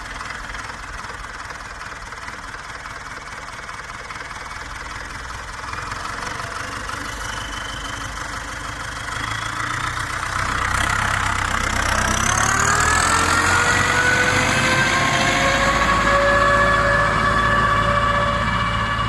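YuMZ-8040 tractor's diesel engine running steadily. About ten seconds in it grows louder and its note climbs in pitch, then holds at the higher speed.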